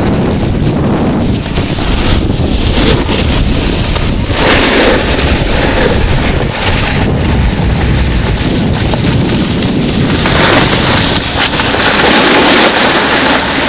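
Heavy wind buffeting on the microphone of a camera moving down a groomed ski run, mixed with the hiss of skis or a board sliding on packed snow. It swells about four seconds in and again from about ten seconds in.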